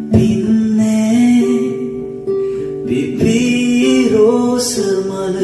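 Background music: a Sinhala song with acoustic guitar and a singing voice.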